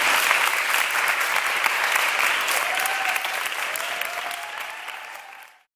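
A group of people applauding with hands clapping, the clapping slowly dying away and then cutting off abruptly near the end.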